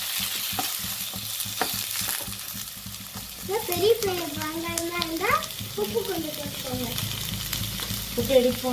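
Chopped onions sizzling in hot oil in a stainless steel kadai, stirred with a wooden spatula that knocks against the pan now and then. A wavering pitched sound rises and falls about four seconds in and again near the end.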